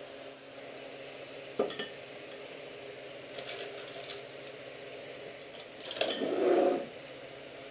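Metal crown caps clinking in a glass as a few are picked out by hand, then a louder clatter as a cap is set on a beer bottle near the end. A sharp single knock comes about a second and a half in.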